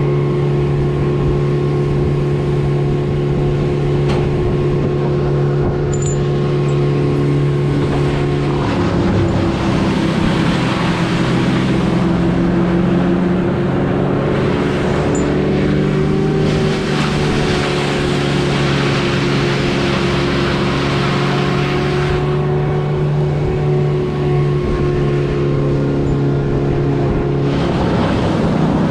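A small engine running steadily. About nine seconds in its pitch shifts, and a harsher, rushing noise rides on top of it for some thirteen seconds before easing back.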